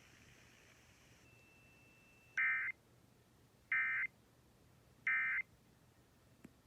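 Emergency Alert System end-of-message code: three short bursts of warbling digital data tones, about a second apart, marking the end of the alert.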